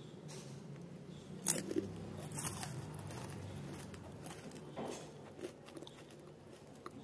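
Bites into a crisp, brittle snack: a few sharp crunches, about a second and a half in, around two and a half seconds, and near five seconds, over a low steady hum.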